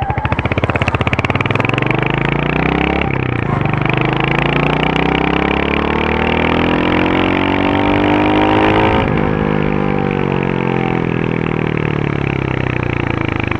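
Royal Enfield Hunter 350's single-cylinder 350 cc engine through its stock exhaust, idling with a steady thump for about three seconds. It then revs slowly upward for about six seconds before the revs fall back as the throttle is released.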